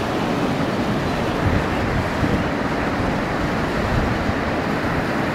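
A swollen, muddy flood river rushing past with a steady rush of water noise, with some wind buffeting the microphone.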